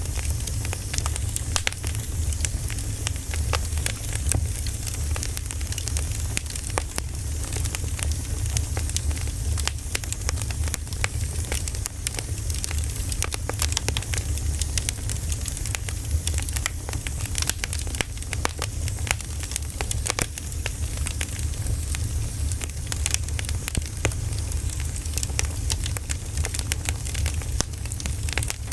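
Wood campfire burning: firewood crackling with frequent sharp pops and snaps throughout, over a steady low rumble.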